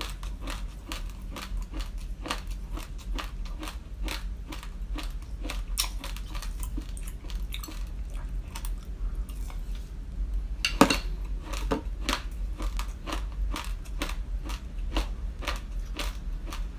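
Raw glutinous rice grains being crunched and chewed, close-miked: a rapid run of sharp, dry cracks, several a second, with a louder burst of crunching about eleven seconds in.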